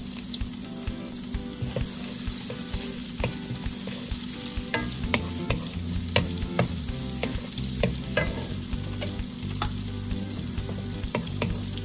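Food sizzling in hot oil in a pan while it is stirred, with frequent sharp clicks and scrapes of a cooking utensil against the pan.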